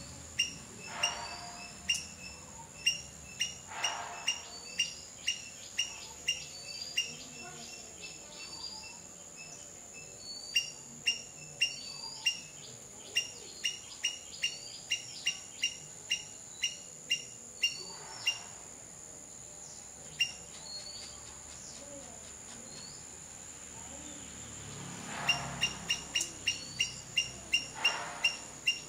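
Outdoor nature sound: a steady high-pitched insect drone under a bird giving short, sharp chirps over and over, a little more than one a second, pausing for several seconds past the middle, then resuming.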